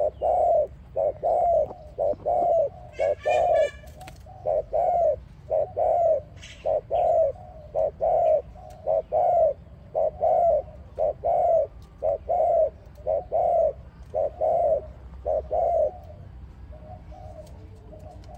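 Spotted dove cooing: a long run of short, low coos in quick groups, dropping to faint coos about sixteen seconds in. A brief burst of high chirps from a small bird about three seconds in.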